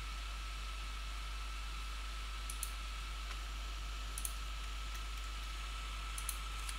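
A few sharp computer mouse clicks, some in pairs, over a steady hiss of microphone noise with a faint high whine.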